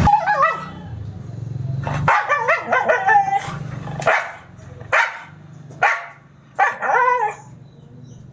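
Siberian husky giving a series of short, wavering howls and yips, about five calls, each under a second, with the pitch wobbling up and down.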